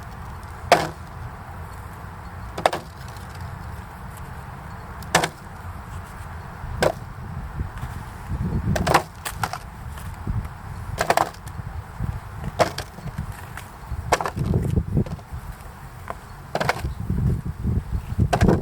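Red creamer potatoes being set down one at a time on a scale: a sharp knock every second or two, with low rumbling handling noise in between.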